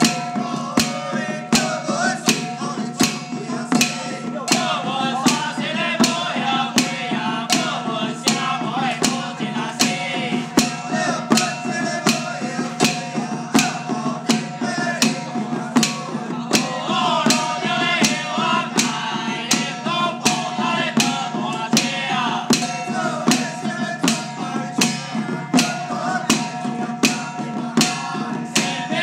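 Handheld octagonal hide drums struck with sticks in a steady beat, about two strokes a second. Singing and a steady held tone carry on underneath.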